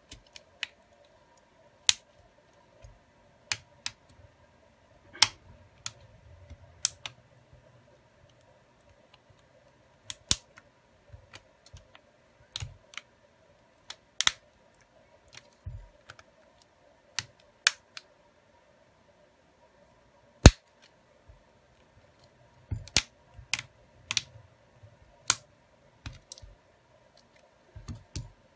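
Irregular sharp plastic clicks and light taps as a smartphone's frame and internal parts are handled and pressed together, some single and some in quick clusters, one louder click about two-thirds of the way in.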